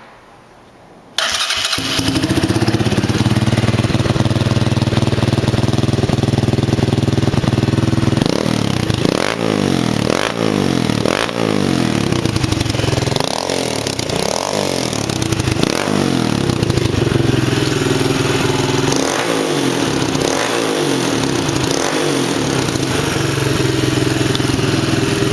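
Gio Beast 200cc ATV engine starting about a second in, breathing through a test-fitted, unwelded 125cc carbon dirt-bike exhaust that leaks at its joints. It idles, then is revved up and down about half a dozen times, settles, is blipped a few more times, and returns to a steady idle.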